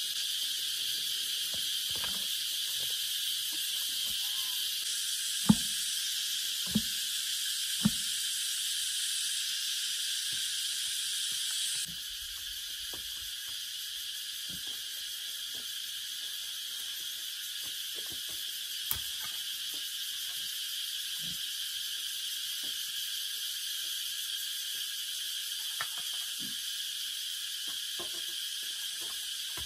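Steady high-pitched insect chorus, which drops in level about twelve seconds in. A few sharp knocks sound over it, three between about five and eight seconds in and a fainter one near the middle.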